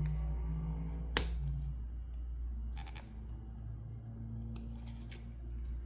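A few sharp clicks, a loud one about a second in and weaker ones near three and five seconds, as a steel insect pin is pressed against the hard shell of a Mecynorhina ugandensis flower beetle that the pin won't go through. A steady low hum sits under them.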